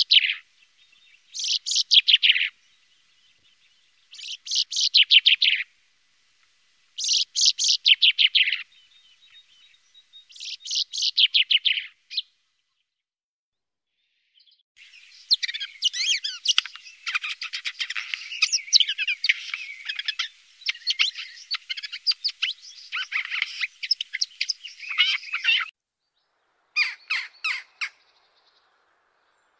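Common chaffinch singing: five short, fast descending song phrases, one about every three seconds. Then about ten seconds of dense, continuous twittering, and near the end a short run of clipped jackdaw calls.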